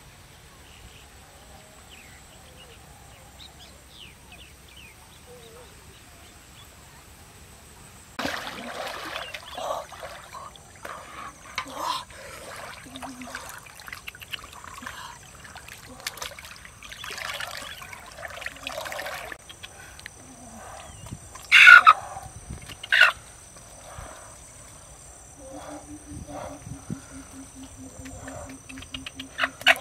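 Pond water splashing and sloshing as someone wades through it pushing a large basin, starting about eight seconds in after a quiet start. Two loud sharp sounds come about a second apart past the middle, and a low, evenly pulsing call runs through the last few seconds.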